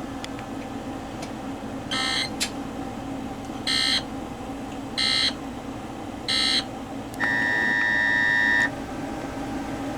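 Emergency Alert System digital data bursts played through TV speakers: four short, harsh bursts, each about a third of a second, followed by a steady beep lasting about a second and a half. A steady low hum runs underneath.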